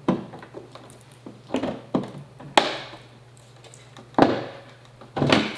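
Hard plastic knocks and taps of a curved monitor's back being fitted onto the hooks of its stand's mount: half a dozen sharp bumps, the loudest about four seconds in.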